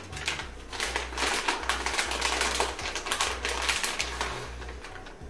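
Plastic bag of shredded cheese being handled and shaken, a dense run of crinkling and clicking that is loudest through the middle and fades near the end.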